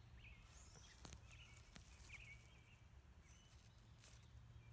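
Near silence: faint outdoor ambience with a steady low hum and a few short, faint bird chirps.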